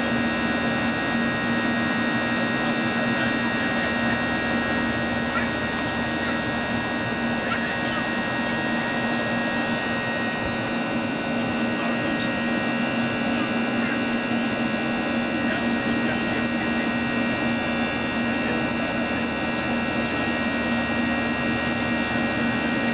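Steady cabin drone of a Boeing 737-800 climbing after takeoff: CFM56-7B engine noise and airflow, with a constant low hum and several steady high tones over it.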